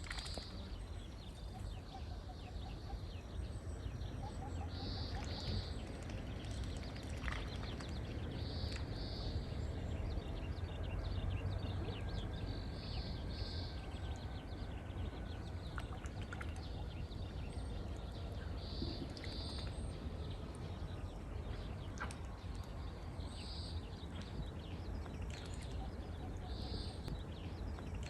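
A bird repeating a short, high call every few seconds, often as a quick pair of notes, over a steady low background hum.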